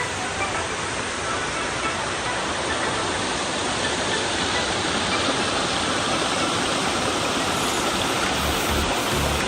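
Steady rushing and splashing of falling water, an even, unbroken roar of a waterfall.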